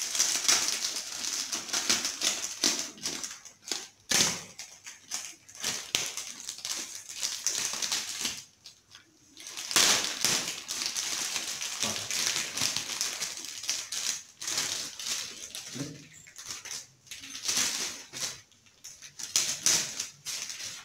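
Plastic film wrapping crinkling, rustling and tearing as it is cut with a knife and pulled off a new air purifier filter, in uneven bursts with a brief lull about nine seconds in.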